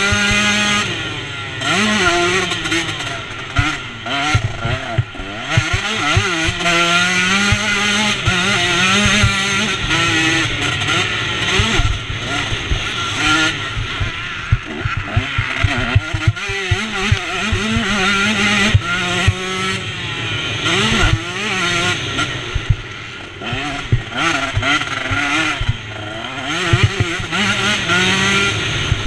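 KTM 125 two-stroke motocross bike's engine revving up and down at race pace, pitch climbing and dropping as the rider works the throttle and gears, with frequent short knocks as the bike hits ruts and bumps.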